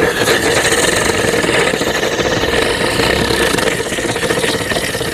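A chakri (Diwali ground-spinner firecracker) spinning inside a metal pressure cooker: a loud, steady hiss of burning powder with a whine, as the spinner knocks about against the cooker's walls.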